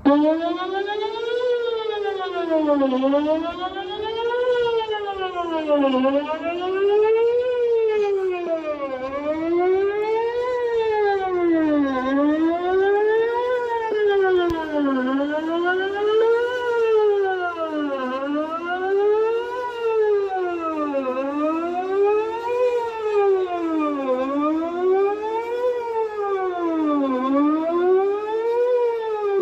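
Whelen 2809 electronic outdoor warning siren sounding its monthly test on a wail tone, the pitch rising and falling smoothly about once every three seconds. It starts abruptly and sounds loud and steady throughout.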